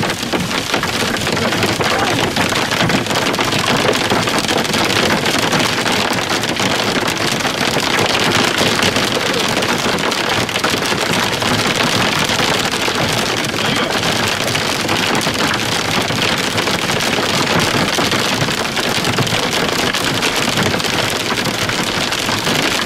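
Heavy rain, with hail in it, pelting a car's windshield and roof, heard from inside the moving car as a dense, steady patter of countless small hits.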